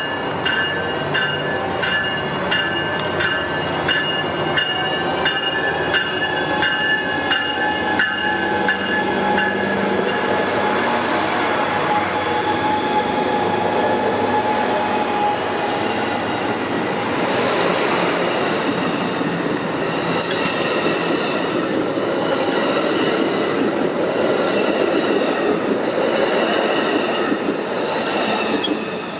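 Pacific Surfliner passenger train pulling out of the station and rolling past: the diesel locomotive working as it gets under way, then the steady rumble of passing cars with some wheel squeal and clickety-clack, fading just at the end.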